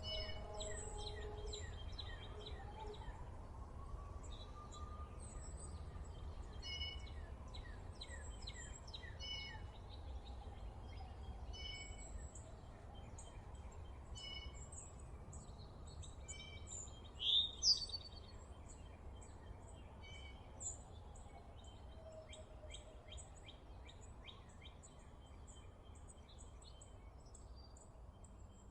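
Birds chirping and calling over a steady low rumble, with many short, quick repeated notes. About two-thirds of the way through, one louder rising call stands out.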